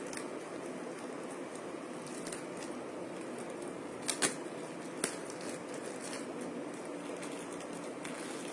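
A plastic courier mailer bag being torn open by hand, with a few sharp crackles about halfway through over a steady background hiss.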